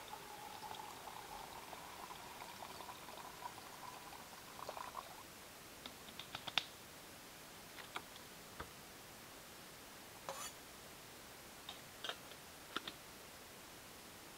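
Liquid poured from a small bottle into a cup, its filling tone rising slightly until the pour stops about five seconds in. A scattering of light clicks and taps follows.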